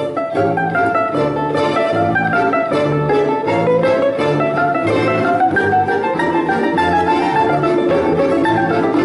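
Balalaika orchestra playing a lively folk tune: a winding melody of rapidly plucked strings over a bass line that sounds about twice a second.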